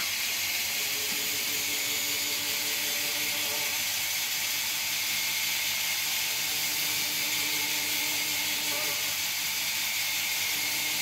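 Steady hiss of air being let slowly back into an evacuated jar through a vacuum pump's valve, bringing it back up to atmospheric pressure.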